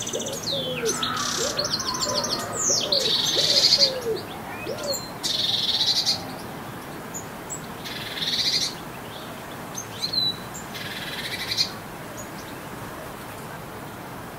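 Garden birdsong: a songbird sings loud, high, varied phrases with short pauses between them, some with rapidly repeated notes, and stops about twelve seconds in. A run of low cooing notes sounds underneath during the first few seconds.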